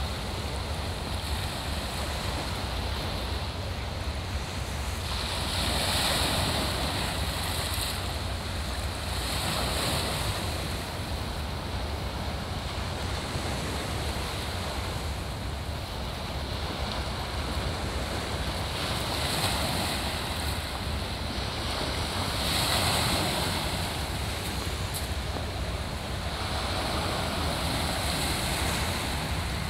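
Small sea waves breaking and washing over shoreline rocks, surging louder several times. Under it is a low, steady rumble of wind on the microphone.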